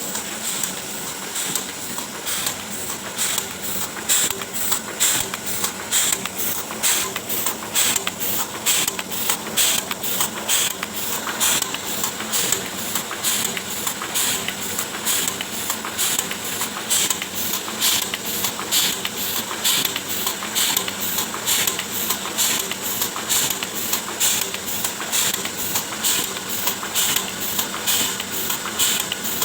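Oliver 72 sheet-fed offset printing press running, a steady, even clatter with a hiss, beating a few times a second as it feeds and prints sheet after sheet.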